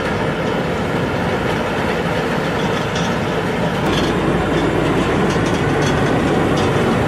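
Train running on snowy track: a steady rumble that grows heavier about four seconds in, with a scatter of light clicks from the wheels on the rails.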